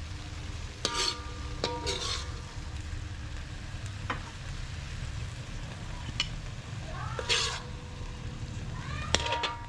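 Beef and water mimosa sizzling in a metal wok while a metal spatula stirs and scrapes, clinking against the pan about six times with short ringing notes.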